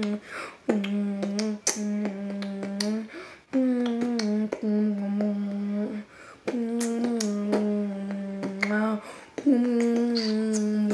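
Vocal beatboxing: about six long hummed notes on a steady, fairly low pitch, each held a second or so, broken up by sharp clicks.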